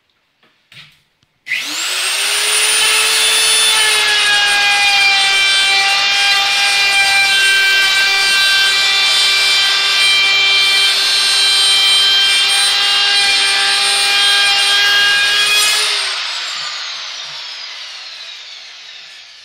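Wood router with a chamfer bit switching on, spinning up quickly to a steady high whine and cutting a chamfer along a wooden edge. About sixteen seconds in it is switched off and the whine falls in pitch as the motor coasts down. A couple of light knocks come just before it starts.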